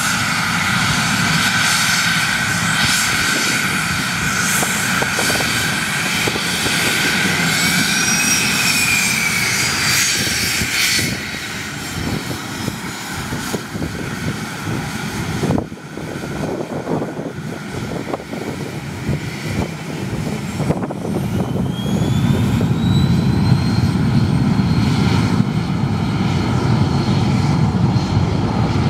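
Twin Pratt & Whitney Canada PW530A turbofans of a Cessna Citation Bravo running at taxi power: a steady high turbine whine over a broad jet rumble. In the last several seconds the sound grows louder and deeper, with a whine rising in pitch.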